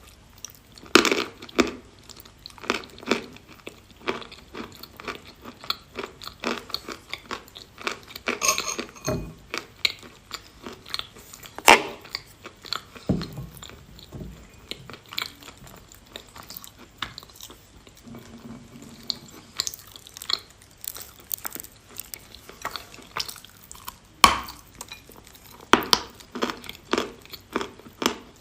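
Edible chalk being bitten and chewed close up: irregular crisp crunches throughout, with a few louder, sharper bites scattered among them.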